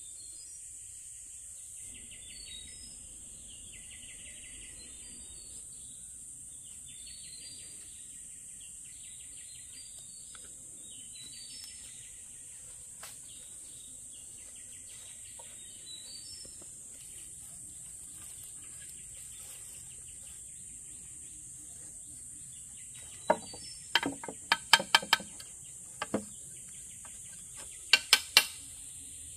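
Outdoor insect chorus: a steady high-pitched buzz with short chirping calls repeating every couple of seconds. Near the end come a handful of loud, sharp knocks in two quick clusters.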